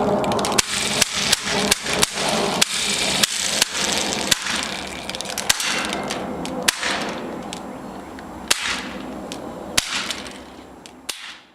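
CO2 airsoft pistol firing a string of sharp pops, about two to three a second at first, then slowing to single shots spaced a second or more apart, over a fading hiss.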